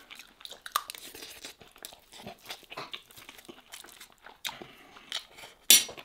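Close-miked eating sounds: chewing and soft mouth noises as a man eats spoonfuls of lamb and rice, with small clicks of a metal spoon against a metal serving tray. A single sharp clack near the end is the loudest sound.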